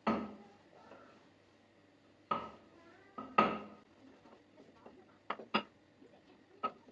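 Kitchen clatter: about seven sharp knocks of utensils against pots and the counter, each ringing briefly, at irregular spacing.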